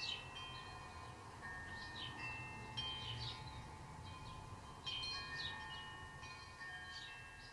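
Chimes ringing: high, clear notes at several different pitches, struck at irregular moments and left to ring on and overlap.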